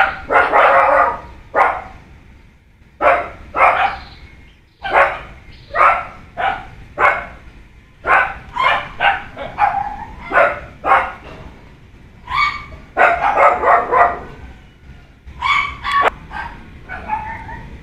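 A dog barking over and over, in quick runs of several barks with short pauses between.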